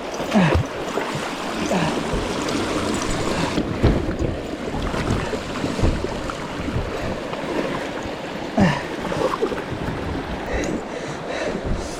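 Rushing river water around a kayak, with wind buffeting the microphone and a few brief low thumps.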